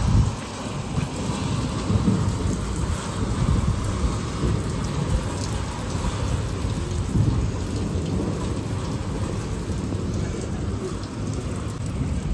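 Heavy rain pouring steadily in a thunderstorm, with thunder rumbling low and continuously underneath it.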